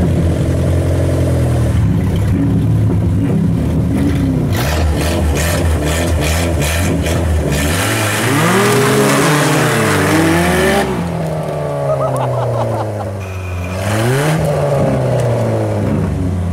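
Small four-cylinder car engines of a Saturn SL1 and a Subaru Impreza straining as the two cars push bumper to bumper: a steady high-revving drone for the first half, then the revs rising and falling several times, with a stretch of hissing noise in the middle.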